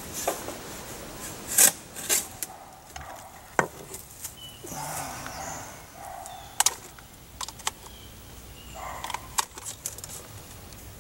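Irregular sharp knocks and clicks with patches of scraping from hands-on work. A shovel digs dirt and strikes a steel tractor loader bucket, then an electrical outlet box and a wall cover panel are handled.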